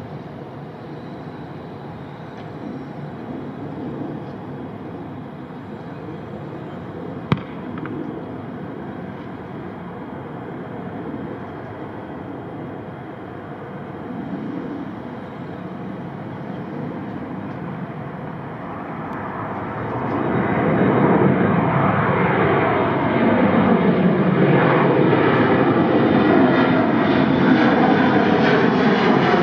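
Airplane engine noise at an airport, first a steady distant rumble, then growing much louder from about twenty seconds in as the aircraft comes close and passes overhead, its sound sweeping in pitch. A single sharp click about seven seconds in.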